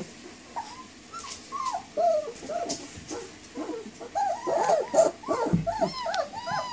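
Young puppies whining and yelping in short, high cries that rise and fall in pitch. The cries are sparse at first, then come thick and overlapping from about four seconds in, as several pups cry at once.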